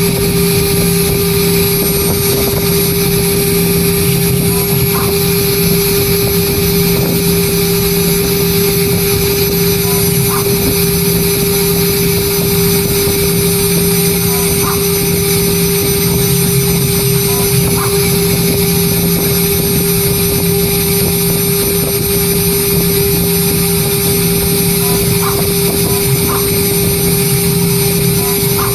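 CNC engraving machine's spindle running at constant high speed, a loud, steady whine, as the cutter engraves lettering into an aluminium composite panel, with a few faint ticks.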